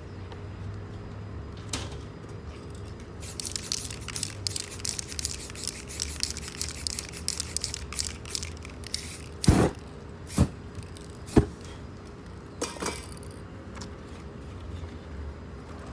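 Aerosol spray-paint can sprayed in many short hissing bursts for several seconds, laying black paint over a paper mask. These are followed by three loud thumps about a second apart, then a softer one.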